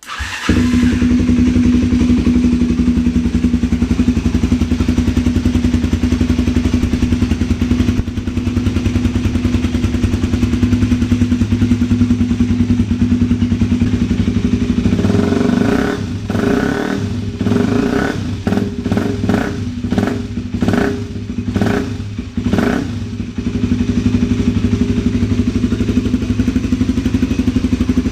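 MZ SM 125 single-cylinder four-stroke engine with an Arrow aftermarket end silencer starting up at once and idling steadily, then blipped about ten times in quick succession through the middle before settling back to idle. The exhaust note is loud.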